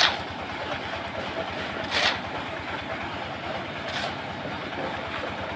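A steady mechanical rumble with a fast, even low pulse, and short hissing swishes about every two seconds.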